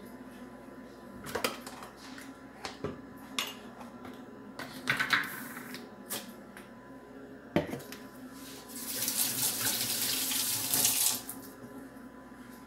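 A few knocks and clatters of kitchen items being handled, then a kitchen tap running steadily for about two and a half seconds near the end.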